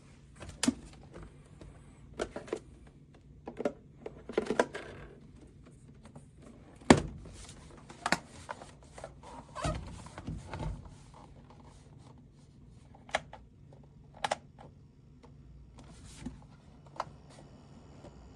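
Scattered sharp clicks, knocks and thunks, with short stretches of rustling, from a small plastic mini fridge being handled, over a faint steady low hum of the fridge running quietly.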